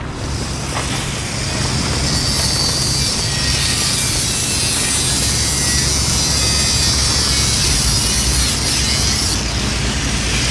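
Angle grinder with a cut-off disc cutting through a metal pipe, giving a steady high grinding hiss. It sets in about two seconds in and stops shortly before the end.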